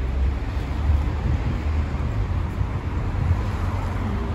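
Street ambience: a steady low rumble of wind buffeting the phone's microphone, mixed with city traffic.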